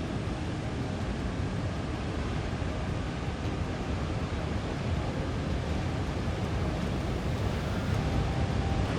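Heavy storm waves surging and breaking, with strong wind blowing across the microphone: a steady, dense rushing noise.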